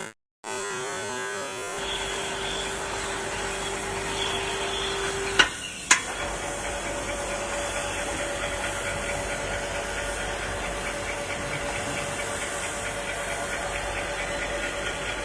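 Water well drilling rig running steadily, a constant machine noise with a hum. Two sharp clicks come about five and a half and six seconds in, after which the hum sits at a higher pitch.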